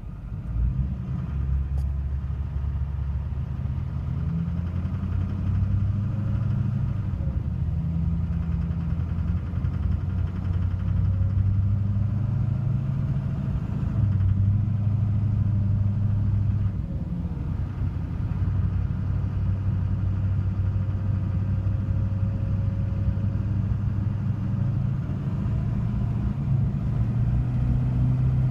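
2006 Chevrolet/GMC Duramax LLY 6.6-litre V8 turbodiesel running, a steady low drone whose pitch and level shift slightly a few times. It carries the knocking noise the owner is seeking help with.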